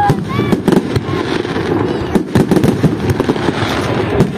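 Fireworks display: a rapid, irregular run of bangs and crackling shell bursts over a continuous low rumble, with people's voices underneath.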